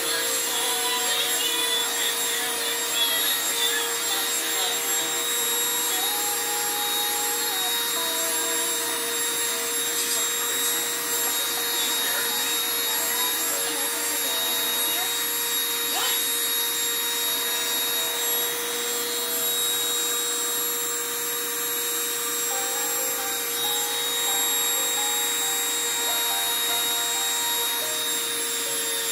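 Small handheld rotary tool fitted with a diamond bit, running steadily at high speed while drilling a piece of sea glass: a constant whine with small shifts in pitch.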